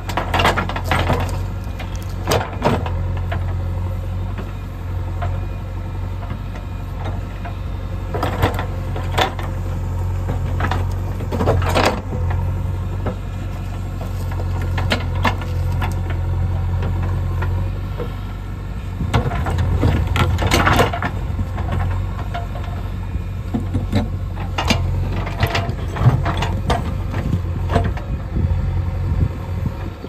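JCB 3DX backhoe loader's diesel engine running steadily under load, with repeated knocks and clattering scrapes as the backhoe bucket digs and drags through rocks and soil, bunched in several spells.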